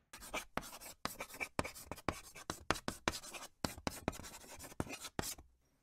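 Chalk writing on a blackboard: a quick, irregular run of short scratchy strokes as words are written out, stopping about half a second before the end.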